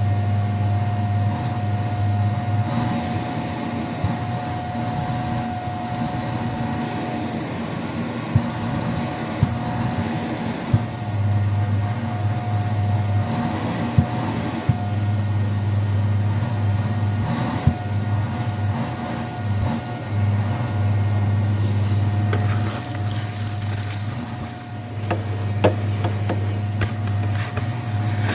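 Vacuum cleaner running steadily over shag carpet: a constant motor hum with a high whine. A handful of short sharp knocks come through as it is worked back and forth.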